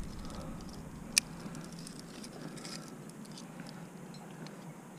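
Climbing hardware clinking once, sharply, about a second in, with a few fainter ticks of gear over a faint steady background.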